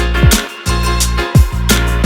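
Upbeat background music with a steady beat: held bass notes and drum hits that drop in pitch, repeating in a regular pattern.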